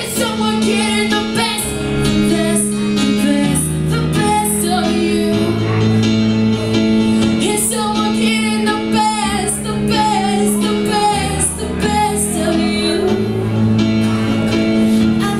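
A song playing: singing, most likely a woman's voice, over a steady bass line and drum beat.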